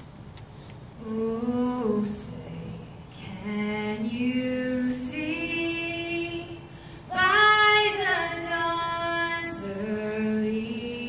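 A young woman singing solo a cappella, in slow, held phrases with short breaks between them, beginning about a second in.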